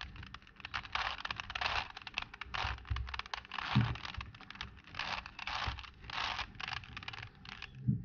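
A plastic 4x4 Rubik's Cube being turned fast by hand, its layers clicking and rattling in quick runs of turns with short gaps between them, as a memorised sequence of moves is carried out.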